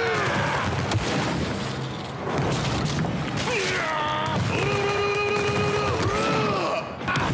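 Anime fight sound: a fast barrage of punch impacts with a man's drawn-out battle shouts, the longest held for about two seconds near the end.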